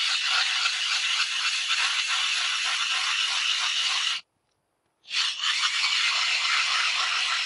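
Hand ice auger being turned and cutting down through lake ice, a steady scraping, rasping grind with fine rapid ripples from the blades shaving ice. The sound drops out completely for about a second a little past the middle, then carries on.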